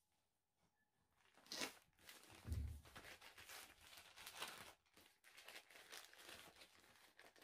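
Plastic mailing bag being handled and torn open: faint, irregular crinkling and tearing, with a dull knock about two and a half seconds in.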